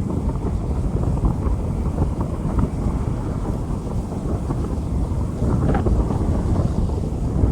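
Rain falling on a street: a steady, dense rushing noise, mostly low in pitch.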